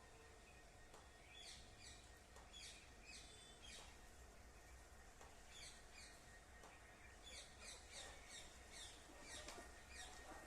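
Parrot chirping faintly: many short, high chirps that drop in pitch, coming in quick clusters with short pauses between.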